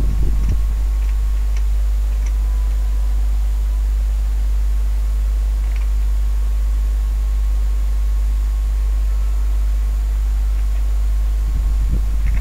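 Steady low hum with an even hiss over it, unchanging throughout, broken only by a few faint clicks.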